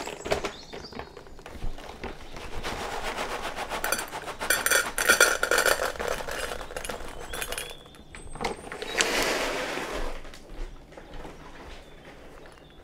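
Dry cat kibble poured from a bag into a stainless steel bowl: a dense rattle of small pieces hitting metal for several seconds, then a rustling hiss. Near the end, quieter scattered crunching as the Bengal cat starts eating the kibble.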